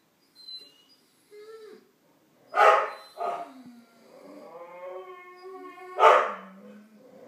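Pet dogs barking, three loud barks about two and a half, three and a quarter, and six seconds in, with a long drawn-out howl between the second and third and a few faint whimpers before the first bark.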